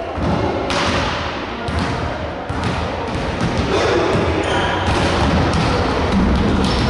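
A volleyball being struck and bouncing on a wooden gym floor: several separate thuds over a steady din of players in a large, echoing sports hall.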